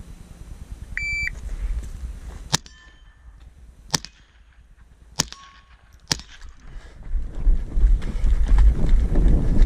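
A shot-timer start beep, then four shots from a Ruger .22 rifle about a second and a half apart, each answered by the ring of a hit steel target. Rumbling wind and handling noise on the helmet camera's microphone grows near the end.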